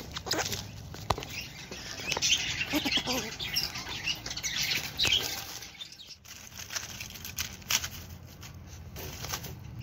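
Dry leaf litter rustling and crackling under a young grey squirrel moving about, with scattered sharp clicks and taps from claws and twigs; the rustling is densest in the first half.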